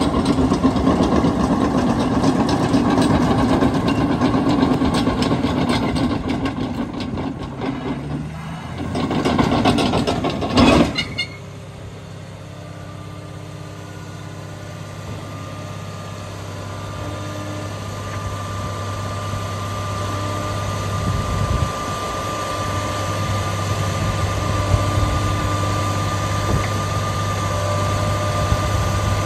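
Cat D6N LGP crawler dozer's diesel engine running hard with rattling and knocking from the machine. About eleven seconds in, it drops abruptly to a steady, quieter idle: a low hum with a thin, high whine that slowly grows louder.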